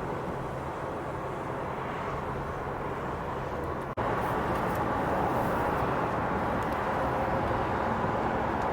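Steady road and engine noise of a moving vehicle. About four seconds in, the sound cuts abruptly to a louder, even rushing noise.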